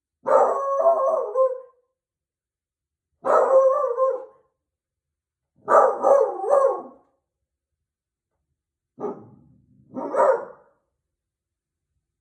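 Beagle baying: loud, drawn-out howling barks in about five bouts with short silences between them, the third broken into quick pulses.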